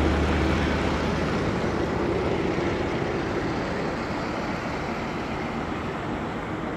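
Road traffic noise: a low vehicle rumble that fades about half a second in, leaving a steady hiss that slowly grows quieter.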